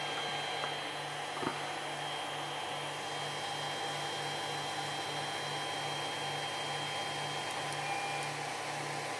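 Creality CR-10 3D printer switched on, its cooling fans whirring steadily, with a faint low pulsing about twice a second and thin steady whines over it.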